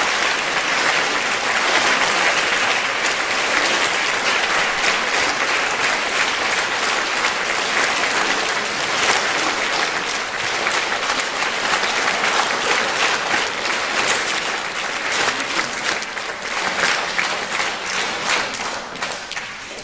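Audience applauding in a hall, a dense steady clapping that thins into scattered claps in the last few seconds and then stops.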